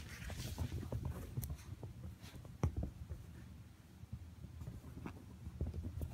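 Sphynx kitten and Chihuahuas scuffling on blanket-covered furniture: soft rustling with scattered light thumps and taps, the sharpest about two and a half seconds in.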